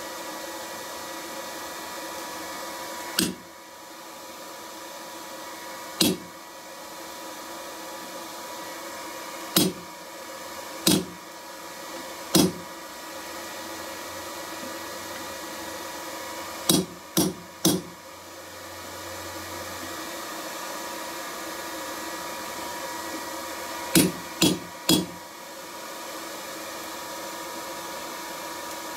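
Hand hammer striking a blacksmith's punch held on red-hot steel on an anvil, hot-punching the rivet hole in a tong half. About eleven sharp blows: single strikes a few seconds apart, then two quick runs of three, over a steady hum.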